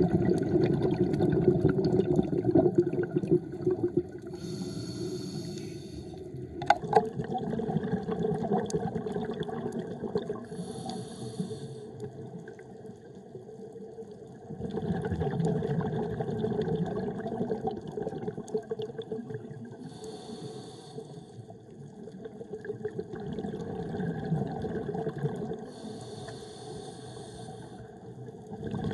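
Underwater recording of a scuba diver breathing through a regulator. A hiss of inhalation comes about every five to six seconds, and bubbly gurgling exhalations fill the gaps between.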